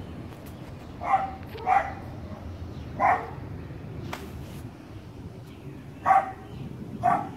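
A dog barking: five short single barks, two close together, then one, then two more a second apart, over steady low background noise.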